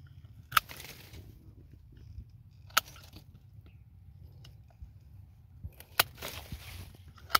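Hand pruning shears snipping jackfruit twigs: four sharp snaps of the blades closing, about half a second in, near three seconds, near six seconds and just before the end, each followed by a short rustle.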